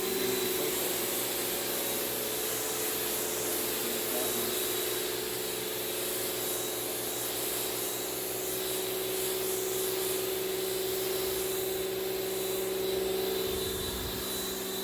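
Kärcher 1800 PSI electric pressure washer running steadily with the 15-degree nozzle: a constant motor-and-pump hum and a thin high whine over the hiss of the water jet.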